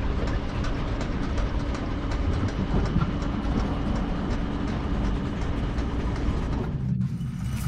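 Sound-effect machinery for an animated body-as-factory: a steady low mechanical rumble and hum with a fast, regular clicking, like wheels running over rail joints. The sound drops away abruptly near the end.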